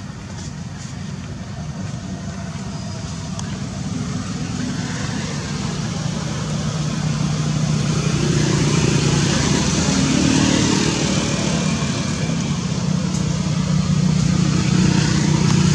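A motor vehicle engine running with a steady low hum, growing steadily louder.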